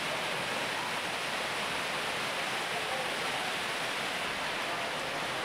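Steady, even hissing noise at a constant level.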